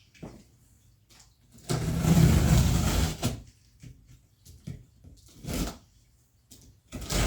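Cardboard box being handled: a long scraping slide of cardboard against cardboard for about a second and a half, as an inner box is worked out of its outer shipping box, followed by a few light knocks and rustles.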